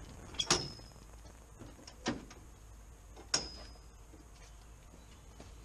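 Metal latches on the rear ramp door of an enclosed cargo trailer clanking as they are worked open: three sharp clanks about a second and a half apart, the first and last with a brief metallic ring.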